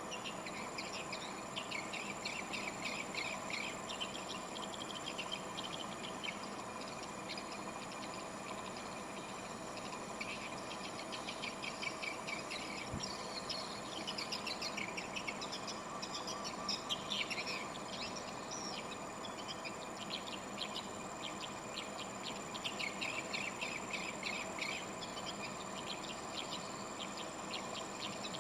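Swiftlets twittering: dense, rapid, high chirps and clicks in repeated bursts, over a steady high-pitched tone.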